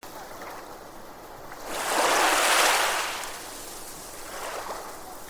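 Sea surf: about two seconds in, a wave washes in, swelling to a loud hiss and fading again over about a second and a half. A steady fainter rush of water lies under it.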